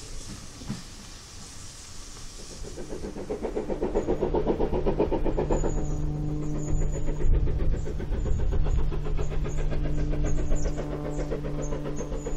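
GWR 4500-class small prairie tank steam locomotive working, its rhythmic exhaust beats growing louder. A steady engine-like hum runs under it from about halfway, with birds chirping.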